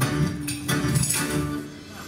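Stage show music with a steady beat, dropping in level near the end.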